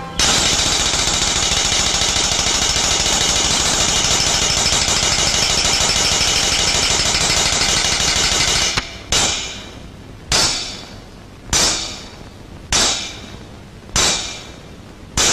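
Suspense soundtrack of an old film: a loud, dense rattling roll for about nine seconds, which stops suddenly. It is followed by six sharp single hits a little over a second apart, each dying away quickly.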